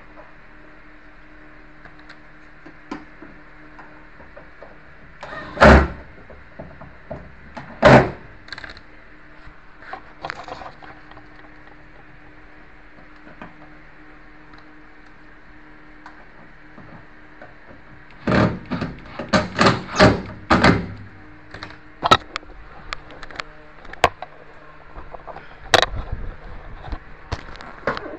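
Knocks and clunks of hand work on a front-loading washing machine's door and cabinet: two loud knocks, then after a quiet spell a quick run of knocks and several single taps, over a faint steady hum.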